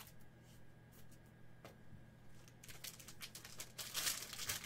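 Wrapper of a trading-card pack crinkling as it is torn open: a few light clicks at first, then dense crinkling from about two and a half seconds in, loudest near the end.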